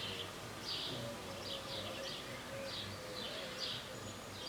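Birds chirping, short high calls repeated several times, over a faint steady hum.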